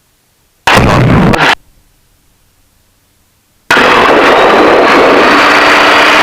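Cockpit audio through a headset or intercom feed that switches on and off abruptly. A brief loud blast of noise comes about a second in. From a little past halfway, the steady noise of the aircraft's piston engine cuts in and carries on, with a faint rising whine.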